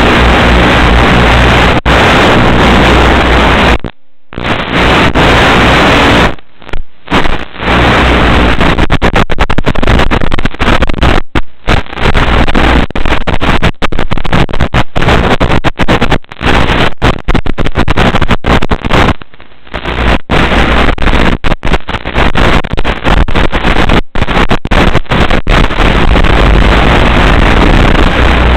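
Loud, harsh static-like noise on the audio channel of a 5.8 GHz analog FPV video link, under a steady low hum. It cuts out for an instant many times, with longer gaps of about a second near the start, in the middle and around two-thirds through.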